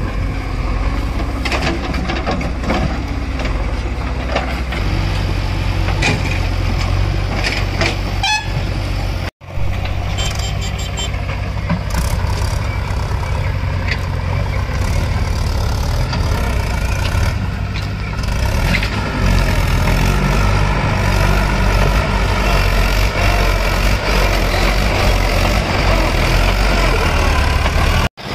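Heavy diesel engines working. First a JCB 3DX backhoe loader runs with scattered knocks as it digs and dumps soil. After a brief drop-out, the four-cylinder diesel of a Mahindra 575 DI tractor pulls a fully loaded trolley, its engine growing louder about two-thirds of the way through.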